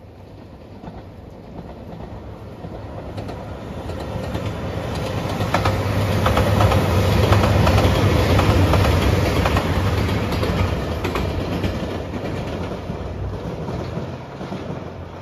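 A red Anpanman-liveried JR Shikoku 2700 series diesel limited express train passing by. Its engine hum and wheel noise build to a peak about halfway through and then fade, with a rapid clickety-clack of wheels over rail joints as the cars go past.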